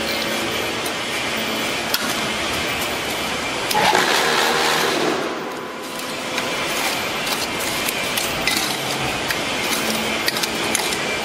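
QTJ4-30C cement hollow block machine running, with metal clinks and scraping as a hand tool works the concrete mix in the mould. About four seconds in, a louder rushing noise lasts about two seconds.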